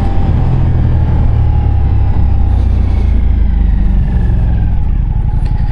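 Ducati Diavel V4's 1158 cc V4 engine running steadily as the motorcycle rides along, its note shifting slightly about four to five seconds in.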